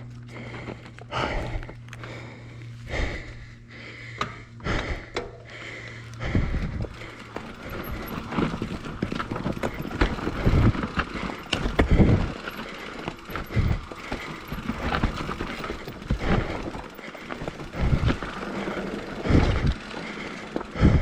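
Mountain bike clattering and thumping over a dry, rough, blown-out dirt trail, with the rear hub's ratchet ticking. For about the first six seconds the knocks come slow and evenly spaced, then turn denser and heavier as the bike rolls down the rutted channel.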